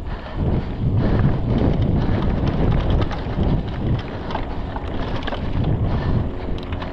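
Wind rushing over the microphone of a camera riding on a mountain bike moving fast down dirt singletrack, with the clatter and rattle of the bike over the rough trail.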